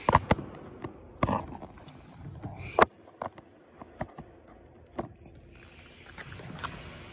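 Handling noise from a phone being set down and adjusted on the floor: a string of sharp knocks and rubs from fingers and the phone against the mic and the floor, loudest in the first three seconds and fewer after about five.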